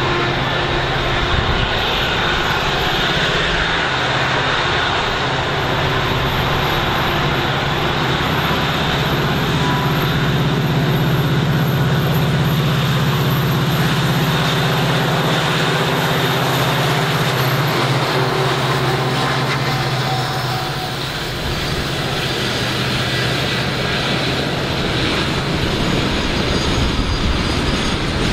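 Diesel locomotive engine running with a loud, steady low drone as a diesel-hauled train passes on the line.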